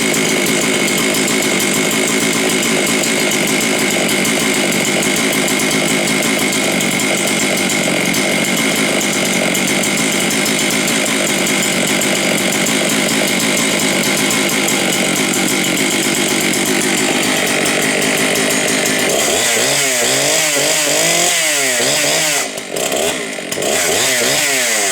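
Husqvarna 272 XP 72 cc two-stroke chainsaw running at high throttle, steady for most of the time, then revving up and down in the last few seconds with two brief drops in throttle.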